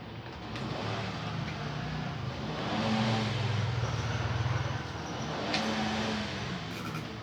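A motor hum that builds, holds for a few seconds and fades, then returns briefly, over a steady noise.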